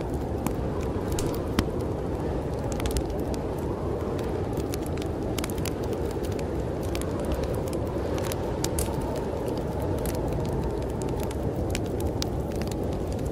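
Wood fire crackling in a fireplace, with frequent irregular sharp pops, over a steady low rush of storm wind.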